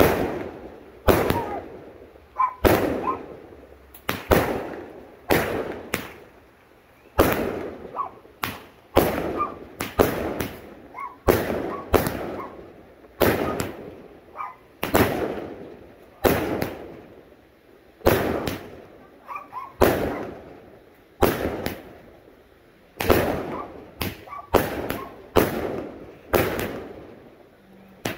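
'Super Fruits' 25-shot salute fireworks cake firing shot after shot, about one a second. Each shot is a sharp bang with a fading tail.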